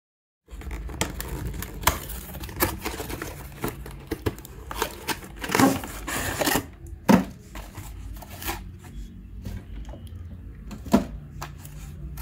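A toy's cardboard box and card tray being handled and slid open: irregular clicks, taps and rustling, with a longer rustle about six seconds in and sharp knocks about seven and eleven seconds in.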